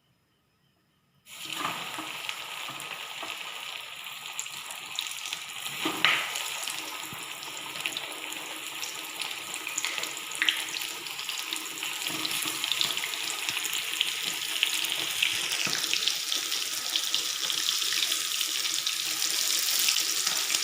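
Flour-coated chicken pieces deep-frying in hot sunflower oil: a steady sizzle with scattered sharp pops, starting about a second in and slowly growing louder.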